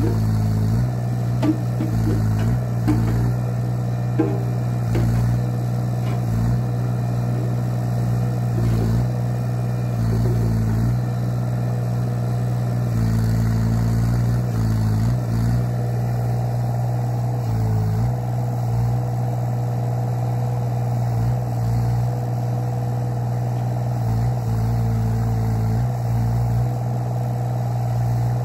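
LTMG 2-ton mini excavator's diesel engine running steadily while the boom, arm and bucket are worked, its note shifting a few times. A few sharp knocks come in the first few seconds.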